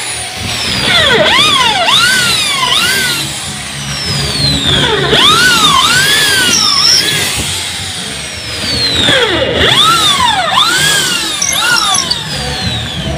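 Background music with repeating swooping synth sweeps over a steady pulsing beat, with a cordless drill boring into a plywood speaker cabinet underneath.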